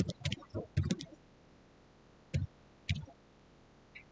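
Computer keyboard typing: a quick run of keystrokes in the first second, then two single key presses about half a second apart a little past the middle, and a faint click near the end.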